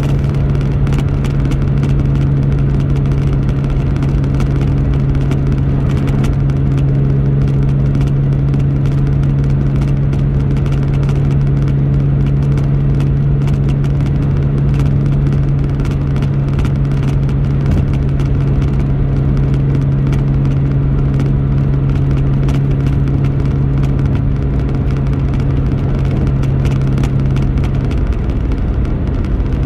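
Car driving at a steady highway speed: a steady low drone of engine and road noise over an even rush of tyre noise.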